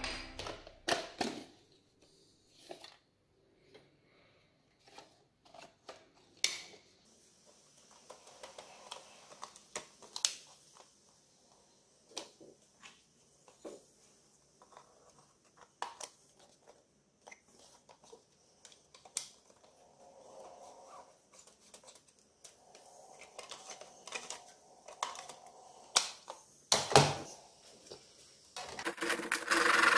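Scattered light clicks and knocks of a plastic VHS cassette and a thin wooden strip being handled on a plywood workbench, with one heavier thump near the end. Then a handsaw starts cutting the wooden strip with quick, steady strokes.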